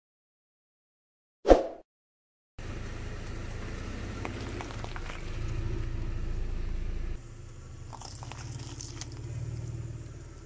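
A brief loud thump about a second and a half in. Then a car's low engine hum with crackling and crunching as its tyre rolls over and crushes brittle items.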